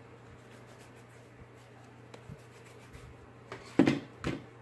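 Hands kneading and pinching a lump of clay slime: quiet rubbing and handling, then two louder handling noises about half a second apart near the end, over a low steady hum.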